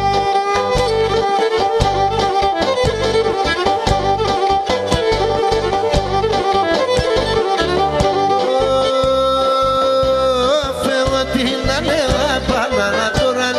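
Greek folk music, instrumental: a bowed lyra plays the melody over a steady drum beat. Near the end it holds one long note, then breaks into wavering ornaments.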